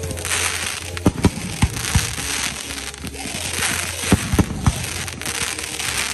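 Fireworks finale: shells launching and bursting in quick succession, about ten sharp bangs at irregular intervals over a continuous hiss.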